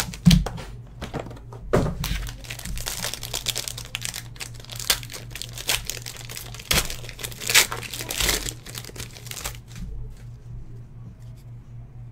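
A box of Limited basketball trading cards being opened and its pack wrapper torn, a busy run of crinkling and tearing with a few sharp cracks that dies away about nine and a half seconds in. A faint steady hum lies underneath.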